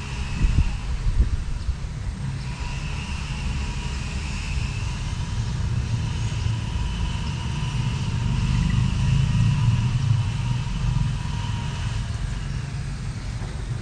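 A low rumble that swells around the middle and eases off toward the end, with a steady high-pitched drone above it.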